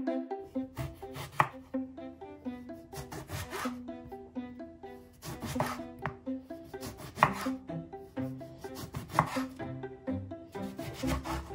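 A large kitchen knife slicing through a whole aubergine onto a wooden cutting board, one cut about every two seconds. Instrumental background music plays under it.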